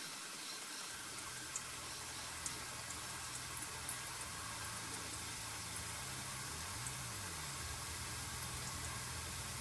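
Faint, steady hiss and trickle of automatic transmission fluid being driven by low-pressure compressed air from a bottle through the transmission oil cooler line, with a few light ticks. A low hum comes in about a second in.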